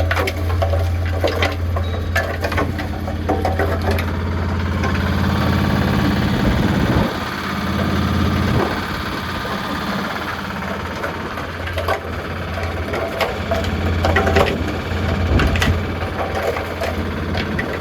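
Concrete mixer running during cleaning: a steady low motor hum with irregular knocks and rattles from the drum.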